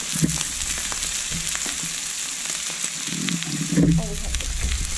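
Two thick bone-in chops searing in a hot cast-iron skillet: a steady sizzle of fat and juices with scattered small pops and spatters.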